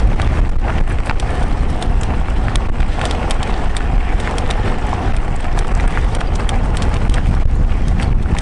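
Wind buffeting a microphone riding on a moving mountain bike, a steady heavy rumble, with frequent small clicks and rattles from the bike running over a rough track.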